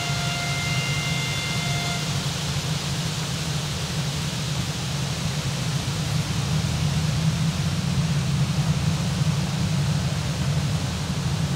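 Diesel locomotive's engine running with a steady low rumble, growing a little louder after about six seconds. A high, steady, horn-like tone sounds over it and stops about two seconds in.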